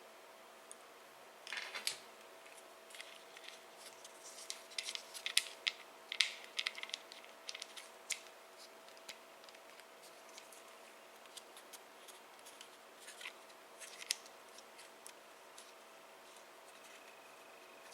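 Irregular small clicks, snips and scrapes of small hard parts being handled and worked by hand, busiest in the first half, over a faint steady hum.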